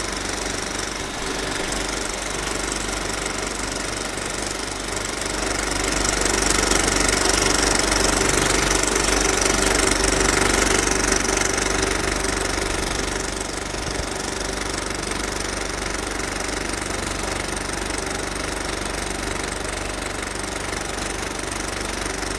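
Cinema film projector running, a steady mechanical clatter with a hum under it, growing louder for several seconds in the middle.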